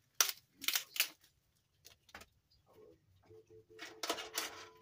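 Fresh celery stalks snapped by hand: a few sharp, crisp cracks in the first couple of seconds, then a burst of rustling and crackling near the end as the bunch is handled and set down.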